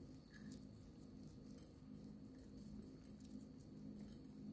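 Near silence: faint, scattered light ticks of crushed red chilli flakes being rubbed from the fingers and sprinkled onto bread pizzas, over a low steady hum.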